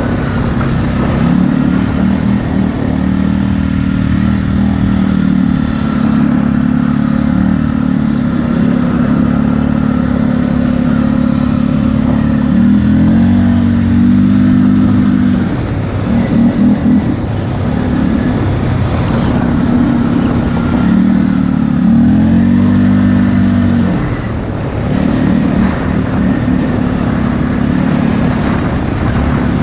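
ATV engine running under load as it is ridden, its pitch rising and falling with the throttle, easing off briefly twice.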